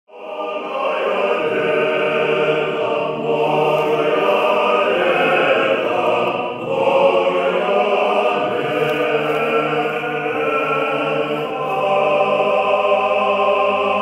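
An Orthodox church choir sings slow, held chords in several phrases, in the style of Russian Orthodox liturgical chant.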